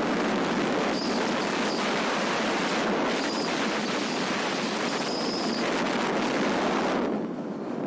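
Waterfall: a steady, loud rush of falling water, with a few brief high chirps over it. The rush thins a little near the end.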